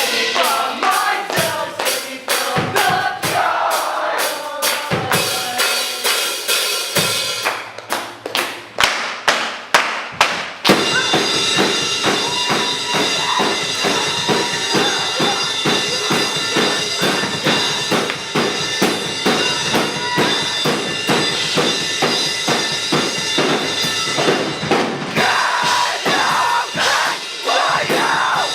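Live metal band playing, drum kit to the fore. A melodic guitar opening over drums gives way to a few seconds of stop-start hits, then the full band comes in hard about eleven seconds in and keeps going.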